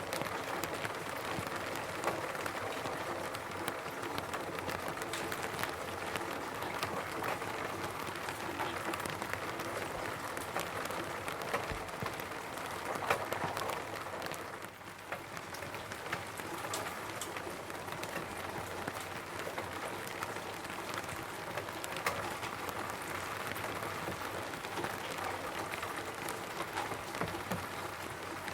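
Rain falling on a roof: a steady spread of many small drop hits with no let-up, apart from a brief easing about fifteen seconds in.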